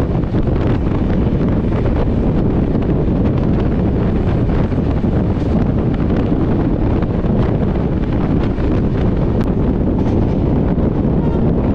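Wind rushing over the microphone, mixed with the steady rumble of a moving passenger train, with faint clicks throughout.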